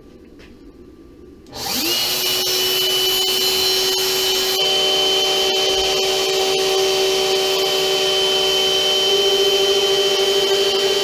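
CNC router spindle spinning up about a second and a half in, its pitch rising quickly, then running at speed with a steady whine and a hiss. A second set of steady tones joins about halfway through.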